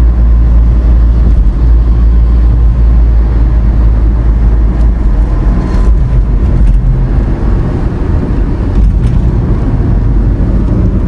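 A car driving, with a steady low engine and road rumble heard from inside the cabin and a few light clicks around the middle.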